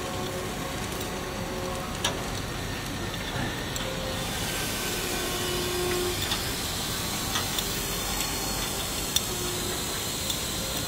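Steady hiss of railway depot ambience under a locomotive, with a few sharp metallic clicks: one about two seconds in and the loudest near the end.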